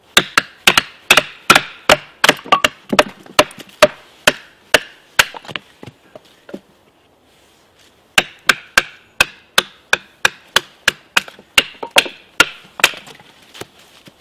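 Two bushcraft knives being batoned through upright wooden sticks: rapid, sharp knocks of wooden batons on the blade spines as the wood splits, from two people striking at once. The knocking thins out for about two seconds midway, then picks up again and stops shortly before the end.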